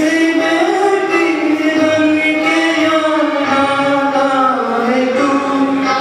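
A man singing into a handheld microphone, holding long notes that slide slowly up and down, with no clear beat.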